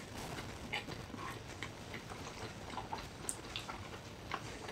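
Faint chewing and small wet mouth clicks of people eating soft dumplings, scattered irregularly.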